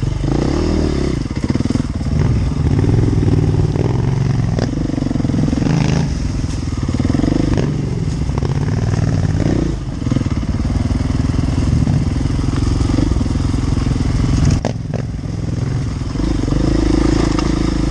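Enduro motorcycle engine being ridden, revving up and falling back again and again, with a couple of sharp knocks along the way.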